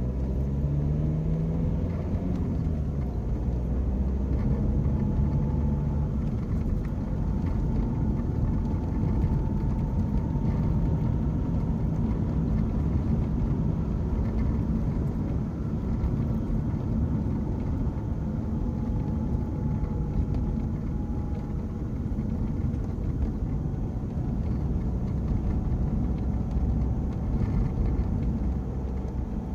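Inside the cabin of a diesel BMW 1 Series on the move: steady engine and road rumble, the engine note rising over the first couple of seconds, with a faint thin gearbox whine that disappears when the clutch is pressed and grows louder from third gear up. A light rattle comes from the phone cradle.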